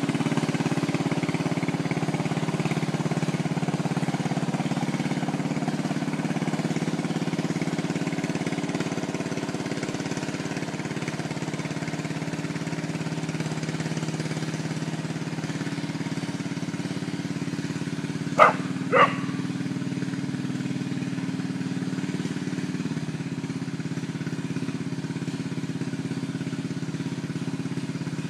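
Small engine of a lawn-mower-based 6x6 running steadily under load while dragging a log, its note shifting down a little past the middle and again later. A little past the middle come two short, sharp sounds about half a second apart, louder than the engine.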